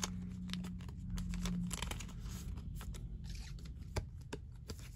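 A trading card being slid into a clear plastic penny sleeve: light plastic rustling and crinkling with many small clicks and taps of card and sleeve handling.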